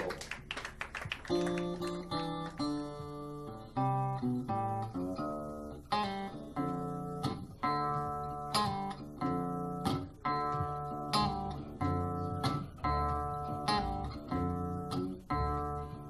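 Gretsch Jim Dandy parlor-size acoustic guitar played solo: a picked blues figure of bass and treble notes, with a sharp accented stroke about every second and a half.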